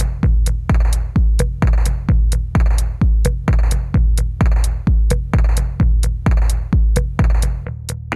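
Electronic music with a heavy, booming bass kick drum a little over twice a second and ticking hi-hats; the bass drops out near the end.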